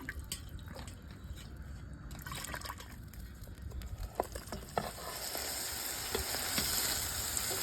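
Cooking at a campfire pot of fish broth: a few light utensil clinks, then a steady sizzling hiss that swells about five seconds in.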